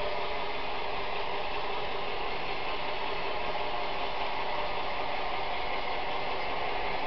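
HO-scale model train running past: a steady, unbroken clatter of wagon wheels on rails, mixed with the whir of locomotive gearing.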